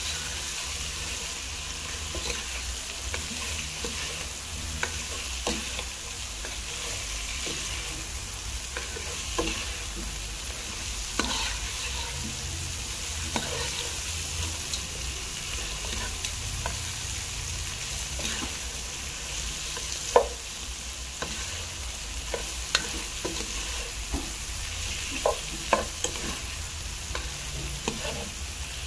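Shrimp sizzling in hot oil with onion, garlic and tomato as they brown in a nonstick pot, stirred with a spatula that scrapes and taps the pan now and then. One sharp tap stands out about two-thirds of the way through.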